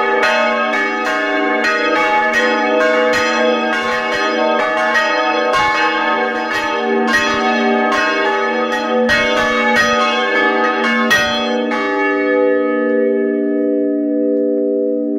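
Church bell swung by hand with a rope, heard close up inside the belfry: the clapper strikes about twice a second over a sustained ringing hum. The strikes stop about three-quarters of the way through, and the bell hums on as it dies away.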